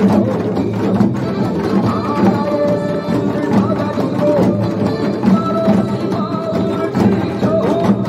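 A group of janggu (Korean hourglass drums) struck with sticks in unison, in time with a recorded trot song backing track that carries a sung melody.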